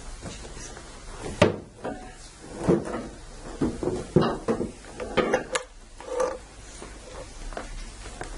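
Irregular knocks, bumps and clatter of wooden chairs being moved and people settling in a small room, with a sharp knock about a second and a half in.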